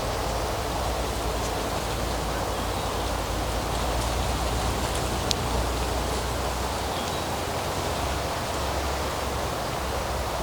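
Steady outdoor rushing ambience, an even noise with a fluctuating low rumble underneath, and one faint click about five seconds in.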